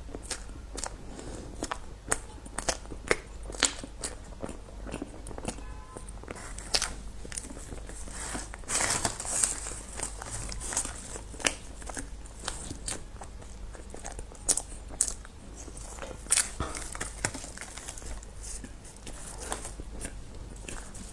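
Close-up eating sounds: bites and crunchy chewing with many sharp clicks and crackles, and a spell of packaging crinkling about nine seconds in.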